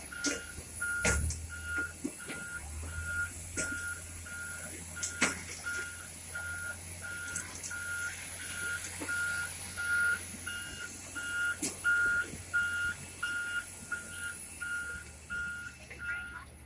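A ground vehicle's back-up alarm beeps steadily on the ramp, about one and a half short beeps a second, and stops near the end. A low hum runs underneath, with a few sharp knocks.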